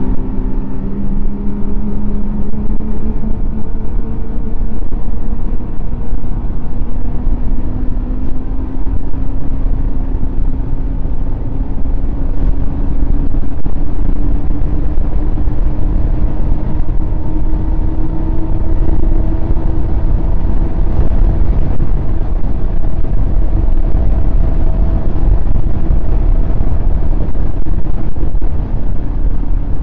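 Snowmobile engine running at trail speed, its pitch climbing slowly for about the first fifteen seconds and then holding steady, over a heavy low rumble.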